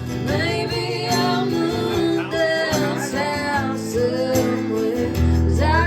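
Live acoustic music: strummed acoustic guitar with a sung melody over it, played and sung continuously.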